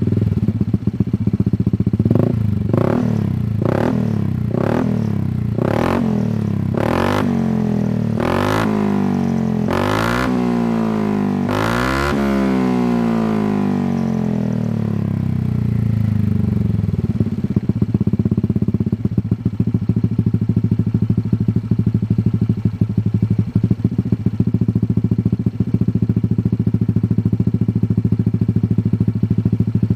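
Motorcycle engine through a Shijiro aftermarket racing exhaust, blipped about a dozen times in quick succession. The last few revs are longer, rising and falling in pitch. It then settles into a steady, pulsing idle for the second half.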